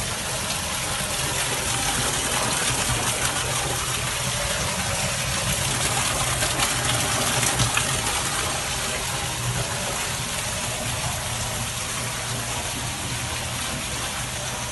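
Water gushing and spraying steadily under pressure from a burst overhead pipe, onto a car.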